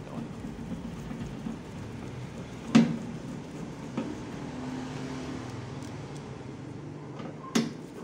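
Knocks and clicks of a screwdriver and metal parts at an Electrolux microwave oven's door hinge as the door is bolted on: a sharp knock about three seconds in, a lighter one a second later and another near the end, over a steady low hum.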